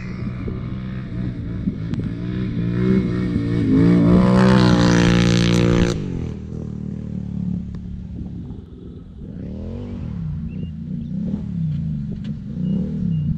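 Can-Am Renegade ATV's V-twin engine running through an Empire Industries aftermarket dual exhaust, revved up to a loud peak that cuts off sharply about six seconds in, then settling lower and blipped in a few quick rises and falls near the end.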